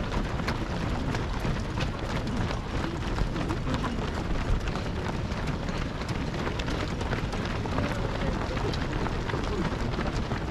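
Footsteps of a dense pack of marathon runners on the road, a constant uneven patter of shoe strikes, with voices murmuring among them over a low outdoor rumble.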